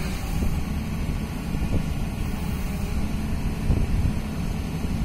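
Excavator engine idling steadily with a low, even drone.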